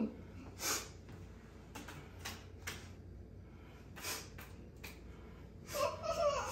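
Several short, soft puffs of noise at irregular intervals, then a muffled voice about six seconds in.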